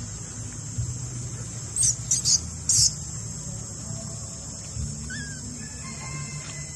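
Steady, high-pitched insect chorus of crickets or cicadas, with three short, sharp high chirps about two seconds in that are the loudest sounds, and a few faint thin calls near the end.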